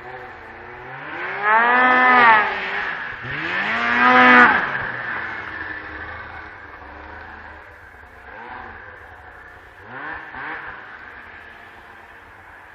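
Two-stroke snowmobile engine, a 2001 Arctic Cat ZR 800, revving hard twice, each rev rising and falling in pitch over about a second, then two shorter, fainter revs near the end as the sound fades.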